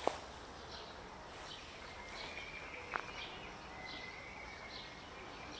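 Outdoor ambience with scattered faint bird chirps, a faint steady high whine through the middle, and two sharp clicks, one at the start and one about three seconds in.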